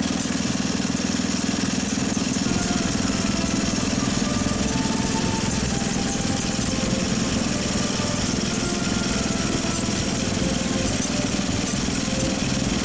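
Small engine of a motorized rail rider running steadily under load as it travels along the track.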